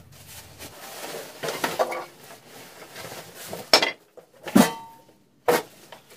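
Cardboard flaps and plastic wrapping rustling as a Grizzly G0725 benchtop jointer is unpacked, then the heavy machine is lifted out and set down on a wooden bench: three sharp knocks in the second half, the middle one a heavy thump.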